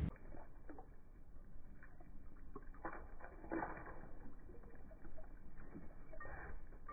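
Rubber boots stepping through shallow rainwater puddles on wet gravel and dirt: faint, irregular splashes and sloshes, muffled.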